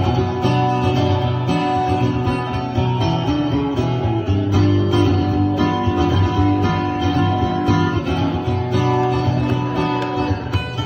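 Acoustic guitar played solo, an instrumental passage of the song with no singing, notes picked and strummed steadily.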